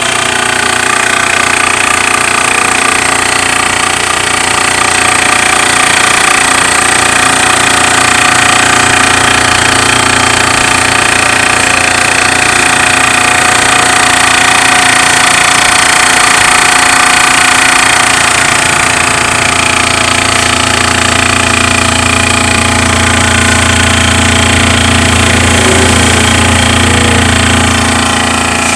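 Makita AC401NX air compressor running continuously, a loud, fast mechanical chatter, with a deeper hum growing stronger about two-thirds of the way through.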